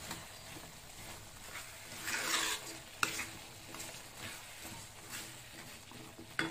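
A wooden spatula stirring and scraping mixed vegetables in masala around a kadai, over a faint sizzle. There is a louder scrape about two seconds in, then a sharp knock, and another near the end.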